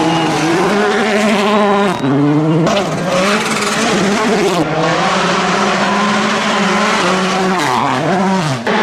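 Volkswagen Polo R WRC rally car engine at full attack, its note rising and falling over and over through quick gear changes, breaking off abruptly a few times.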